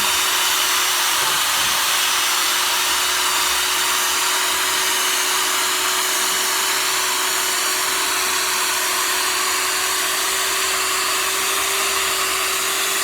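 Cordless drill running steadily at one speed, spinning a sanding disc on a wet headlight lens, with a constant motor whine.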